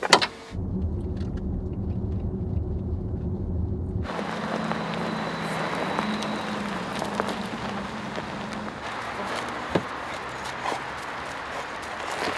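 An Audi e-tron electric SUV's tailgate shuts with a loud thump, followed by the low rumble of the car on the move. From about four seconds in, its tyres hiss and crunch over gravel, with a faint hum and a few light knocks.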